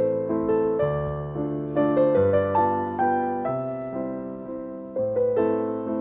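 Background piano music: a gentle melody of single notes over held lower notes, each note struck and fading away.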